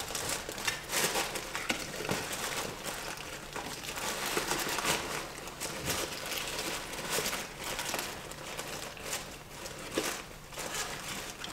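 Paper takeout bag crinkling and rustling as hands rummage through it, with irregular crackles of handled paper and packaging.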